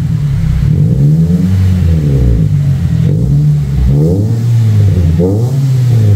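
Nissan Livina's four-cylinder engine revved up and let fall again several times, about once a second, heard as a deep exhaust note close to the pipe during an exhaust sound test.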